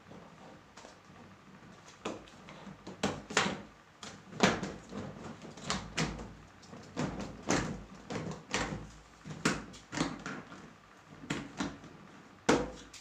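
Hard plastic panels of a five-tier plastic cabinet knocking and clicking against each other as they are fitted and pressed into place: a string of irregular sharp clacks, the loudest about four seconds in and near the end.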